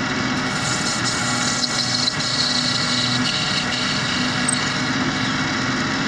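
Small bench metal lathe running with its chuck spinning, a turning tool cutting a brass rod.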